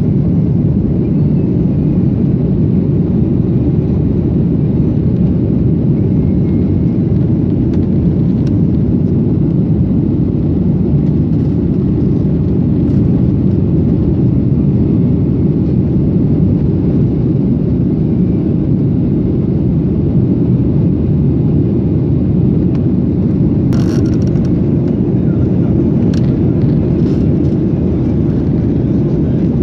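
Steady low rumble of an airliner's engines and airflow inside the passenger cabin during the takeoff or climb. A brief click about 24 seconds in and a fainter one a couple of seconds later.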